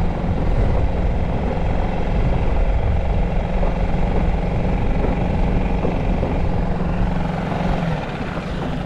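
Honda 5 hp single-cylinder four-stroke outboard motor running steadily under way on an inflatable skiff, easing off slightly about eight seconds in.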